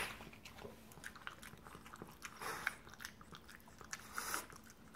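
French bulldog eating soft food from a bowl: irregular chewing and biting sounds, with a few louder moments about halfway and shortly before the end.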